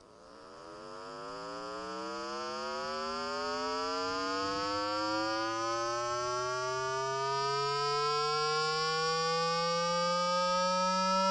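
Water-eject tone: a low electronic tone that sweeps slowly upward in pitch, with several higher tones stacked above it, fading in over the first couple of seconds. It is the kind of sound played through a phone speaker to vibrate water out of it.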